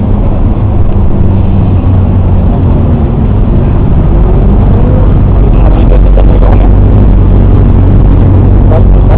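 Loud, steady rumble of nearby road traffic, with a low engine hum throughout.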